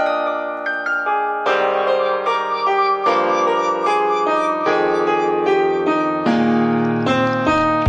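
Background piano music: a gentle melody of separate struck notes, growing fuller with lower notes from about a second and a half in.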